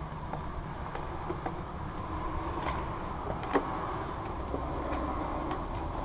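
Plastic engine case being pressed and fitted onto a backpack leaf blower: small clicks and knocks of plastic parts, with one sharper click about halfway through, over a steady low background rumble.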